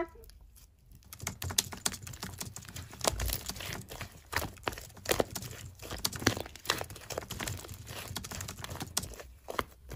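Soft lavender slime kneaded and stretched by hand, giving a quiet stream of irregular sticky clicks and crackles, starting about a second in.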